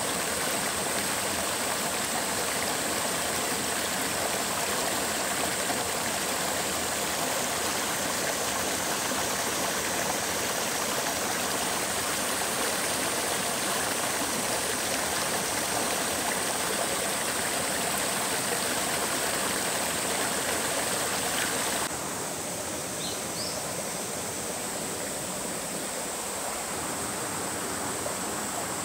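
Steady rushing of a mountain stream or waterfall. About two-thirds of the way through it cuts to a slightly quieter, thinner rush of water, with a couple of short chirps.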